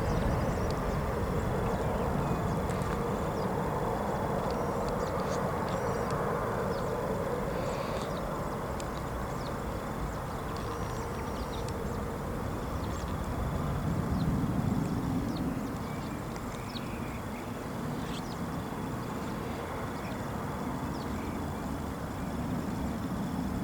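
Jet aircraft engine noise: a steady low rumble that swells briefly about two-thirds of the way through.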